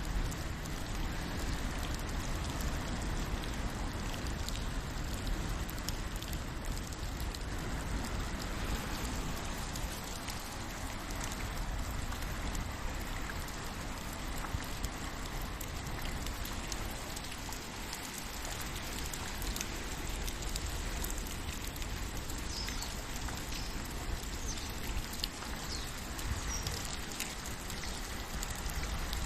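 Steady rain falling, a continuous hiss peppered with many small drop ticks.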